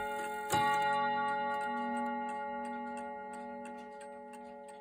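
Garrard mantel clock striking the hour: the hammers hit the gong rods once about half a second in, sounding a three-note chord that rings and slowly fades. The movement ticks steadily under it.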